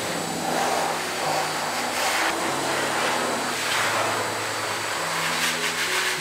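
Pet grooming dryer blowing air through its hose: a steady rushing noise, with background music of sustained low notes that change pitch every second or so.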